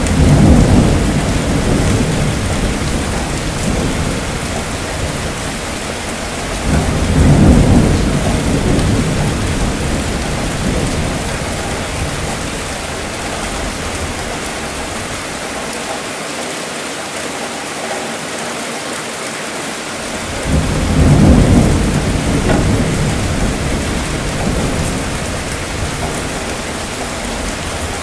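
Steady rain with thunder rumbling three times: once at the start, again about seven seconds in, and again about twenty-one seconds in, each roll swelling quickly and dying away over several seconds.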